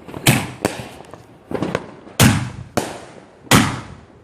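Aerial fireworks bursting: a run of about seven sharp bangs, each trailing off in a rumbling echo. The heaviest come about two seconds in and near the end.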